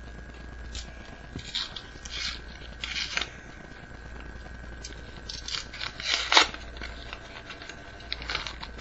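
Homemade paper booster pack being torn open and the cards inside handled: a run of short paper rustles and rips, the loudest about six seconds in.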